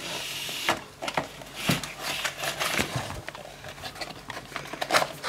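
Handling sounds: a short rustle, then a run of light, irregular clicks and knocks as an egg carton is slid across a wooden worktop and opened.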